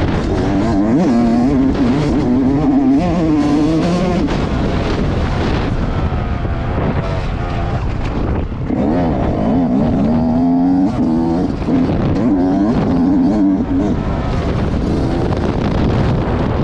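A 125 cc dirt bike's engine, ridden hard, revving up and down as the throttle is opened and closed. Its pitch dips briefly about halfway through and then climbs again. Wind noise hisses over the helmet-mounted microphone.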